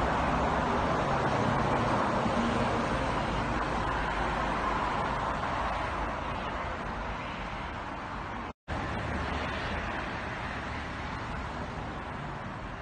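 Steady road-traffic noise from passing motor vehicles, slowly fading, broken by a brief total dropout about two-thirds through.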